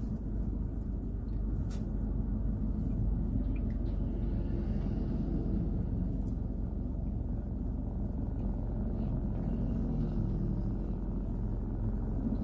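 Steady low rumble of a car heard from inside its cabin, with a couple of faint clicks.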